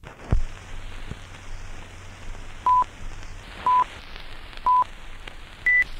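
Film-leader countdown sound effect: a thump just after the start, then old-film crackle and hiss under three short beeps a second apart and a fourth, higher beep near the end.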